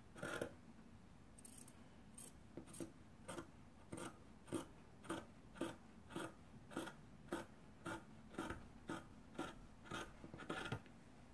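Scissors snipping through cotton fabric in a steady rhythm of about two cuts a second, trimming a sewn seam allowance down to 1 cm.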